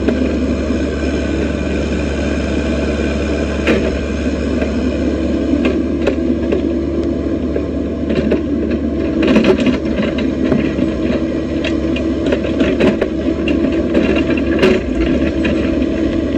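Excavator's diesel engine running steadily, with a few sharp knocks over it.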